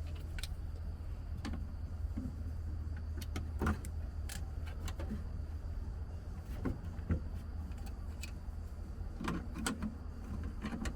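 Scattered light clicks and knocks of small parts and hand tools being handled during work on a Humvee's instrument cluster, over a steady low hum.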